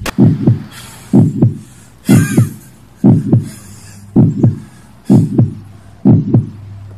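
Heartbeat sound effect: a low double thump, lub-dub, repeating about once a second.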